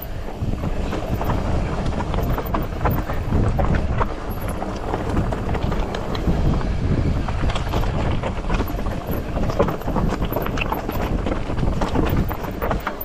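Polygon Siskiu T8 full-suspension mountain bike descending a steep, loose, rocky trail: the tyres crunch over rock and gravel and the bike rattles with many small knocks, over a steady low rumble of wind on the microphone.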